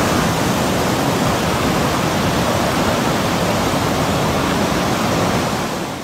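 Breaking surf and wind, a steady loud rushing noise that fades away near the end.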